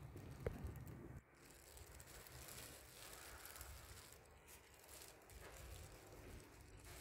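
Near silence: faint room tone with handling noise, a single short click about half a second in, and a low rumble that cuts off a little after one second.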